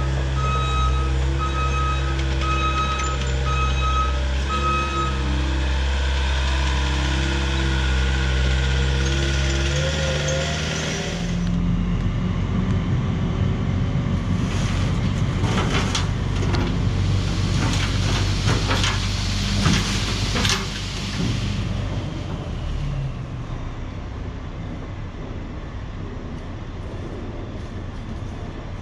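Diesel engine of heavy construction equipment running steadily, with a reversing alarm beeping about one and a half times a second for the first few seconds. About halfway through, the engine note turns rougher and a string of clanks and knocks follows, then the sound eases off near the end.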